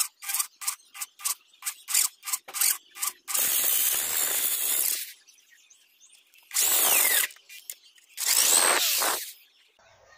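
Electric drill boring through a steel blade: a quick run of short bursts, about three a second, then three longer runs of drilling of a second or two each, with the motor's pitch gliding up and down as the bit cuts.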